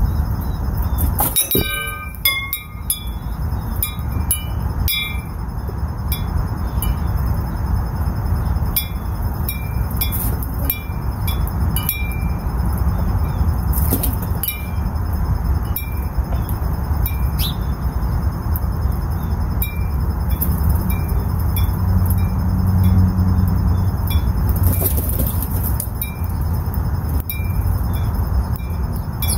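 High chime-like ringing notes struck at irregular intervals, over a steady low rumble.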